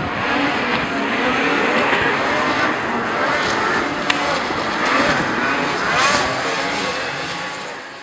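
Several racing snowmobiles' two-stroke engines revving up and down together, their pitches rising and falling as they take the course, fading near the end.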